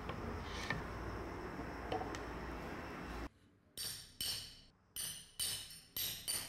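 Hammer striking a multi-prong leather stitching chisel (pricking iron) to punch stitch holes through thick leather. About six sharp metallic taps with a short ring, roughly two a second, starting about three and a half seconds in.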